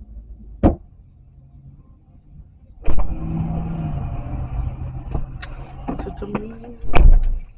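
Car door opening about three seconds in, letting in louder engine and outside noise while someone climbs in, then the door slamming shut with a loud thump near the end.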